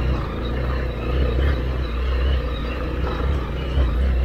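Motorcycle engine running steadily, a low drone.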